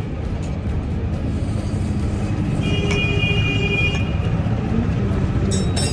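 Steady rumble of road traffic. A high, steady tone sounds for about a second and a half in the middle.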